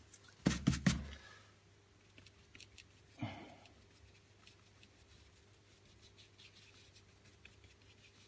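Bristle fan brush dabbing and scratching on a canvas with acrylic paint, in faint small ticks. A few sharp knocks come in the first second, and a short louder sound falling in pitch comes about three seconds in.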